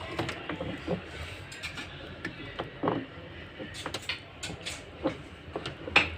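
Electrical tape being pulled off the roll and wrapped around a washing-machine motor's wire joints: irregular short crackles and clicks.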